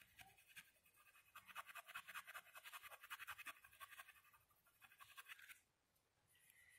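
Faint, quick scratching of a small hand tool rubbed back and forth over a glued paper strip, pressing it down so the glue takes. It comes in a longer spell in the middle and a short one about five seconds in.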